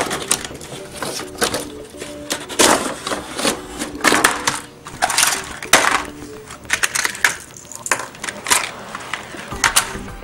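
Cardboard packaging and hard plastic toy pieces being handled: a string of irregular rustles, scrapes and small clicks as a plastic toy wheelbarrow is worked free of its wire twist ties in the box tray. Light background music plays underneath.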